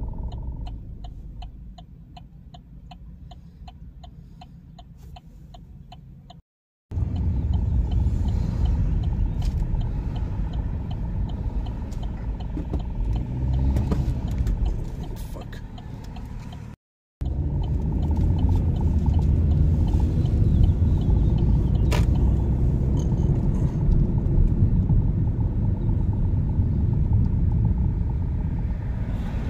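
Car cabin road noise: low engine and tyre rumble, quieter at first with a steady quick ticking, then louder as the car gets moving. The sound drops out abruptly twice.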